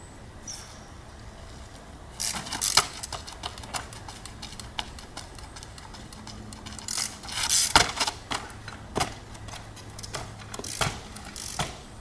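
Trials bike hopping on a rock boulder: irregular sharp knocks and rattles as the tyres and frame land and the chain and parts clatter, in two main flurries with a few single knocks between.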